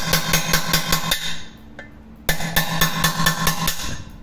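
Rapid hammer taps on a cold chisel cutting off the rivets of a handle bracket on an old aluminium pressure cooker, the pan body ringing with each blow. The taps come at about five a second in two runs, with a pause of about a second just past one second in.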